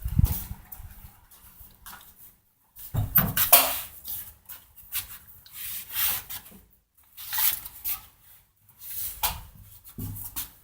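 Rubbing and scraping handling sounds in about seven irregular strokes, each roughly half a second to a second long, the loudest near the start and about three seconds in.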